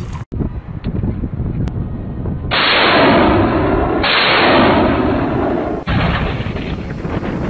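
Artillery fire. A truck-mounted multiple rocket launcher fires a salvo, a loud rushing roar that runs in two stretches of about a second and a half each. Near the end a field gun fires, a sudden heavy shot that tails off.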